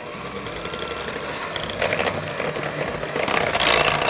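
Electric hand mixer running, its beaters whipping a thick cream cheese and pistachio paste mixture in a glass bowl; the whirring grows louder as it goes.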